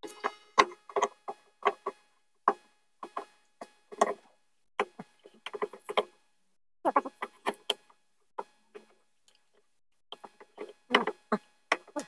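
Irregular sharp metallic clicks and knocks of a hand tool and bolts as an electric motor is fastened onto a front-loading washing machine's outer tub, with a short lull about two-thirds through.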